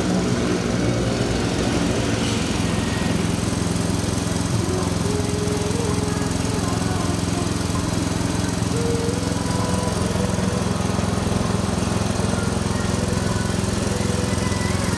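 A 6.5 hp petrol engine running steadily under load, driving a stainless steel screw extruder through a gearbox as it pushes out cracker dough logs.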